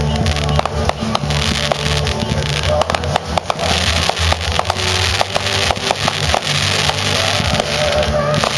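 Fireworks crackling and popping in quick, irregular succession over a constant hiss, with music playing underneath.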